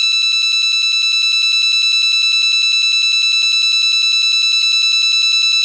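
Emergency alert system alarm tone: a single steady, buzzy electronic tone with a rapid, even flutter.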